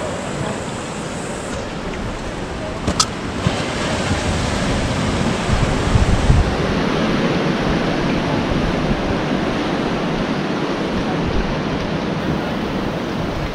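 Ocean surf and wind on the microphone, a steady rushing noise, with a stronger low gust around six seconds in. A single sharp click about three seconds in.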